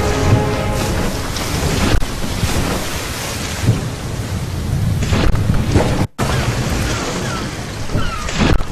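Loud rumbling and crashing storm-and-surf sound effects from the soundtrack of a 3D projection-mapping show, with a sudden brief dropout about six seconds in.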